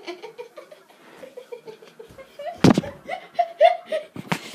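People giggling and laughing, broken by two sharp smacks, one about two and a half seconds in and one near the end.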